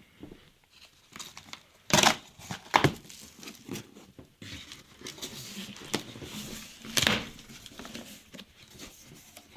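A cardboard shipping box being opened by hand: packing tape and packaging tearing and crinkling, with sharp rips about two seconds in, just before three seconds and about seven seconds in, and rustling in between.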